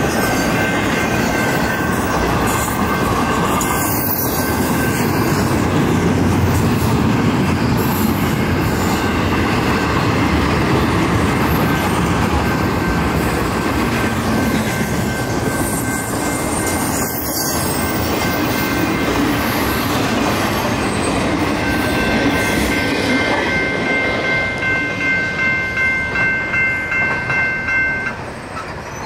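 Intermodal freight cars carrying truck trailers rolling past on the rails, a steady rumble and rattle of wheels. For the last several seconds a crossing-signal bell rings, pulsing about twice a second, until it drops away near the end.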